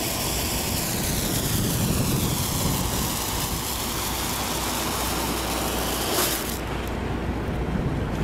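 Handheld marine distress flare burning with a loud, steady hiss, which cuts off suddenly about six and a half seconds in as the flare burns out. A low steady rumble runs underneath.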